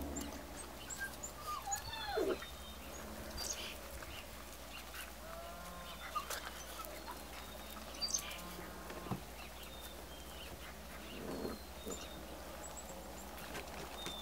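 Five-week-old golden retriever puppies giving a few short whines and yips, one falling cry about two seconds in and a few more in the middle, with small birds chirping faintly in the background.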